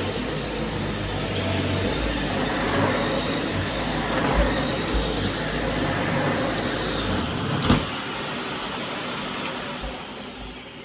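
Vacuum cleaner running steadily. Near the end a sharp click is followed by the low rumble dropping out and a high whine sliding down in pitch as the sound fades.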